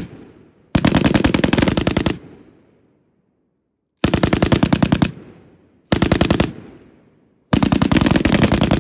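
M240B 7.62 mm machine guns firing short controlled bursts of traverse-and-search fire: four rapid bursts, each trailing off in a short echo.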